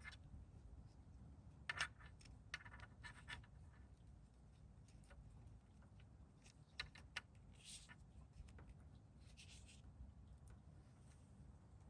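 Faint, scattered clicks and short scrapes of small motorcycle parts and a hex-bit tool being handled while a turn signal, its spacer and wiring connector are fitted and bolted back together.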